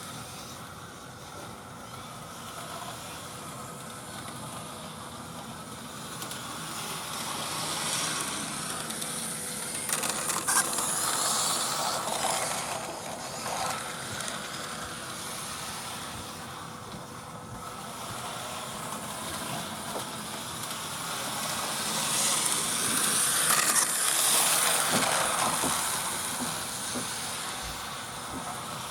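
Electric model railway locomotive pulling coaches along the track: motor and wheels running steadily with a hiss. It grows louder twice, about fourteen seconds apart, as the train comes round close by.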